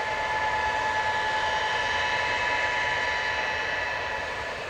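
Tupolev Tu-154M trijets taxiing, their Soloviev D-30KU-154 turbofans whining steadily with several high tones over a rushing noise, easing slightly near the end.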